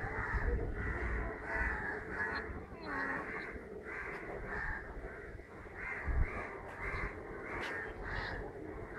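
Crows cawing again and again, short calls following one another through the whole stretch, with a couple of dull low thumps.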